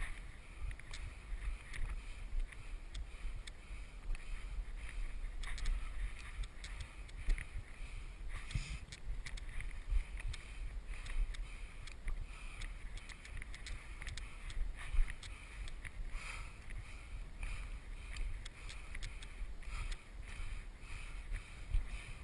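Climber's footsteps crunching and scraping on loose limestone scree and rock, with irregular clicks of shifting stones, over a low rumble of wind on the body-worn camera's microphone.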